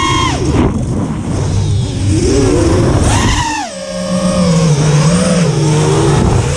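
Racing quadcopter's four brushless motors (Emax RS2205 2300 kV spinning 5-inch props) whining in flight, the pitch rising sharply about three seconds in and then wavering up and down with the throttle, over a low rumble.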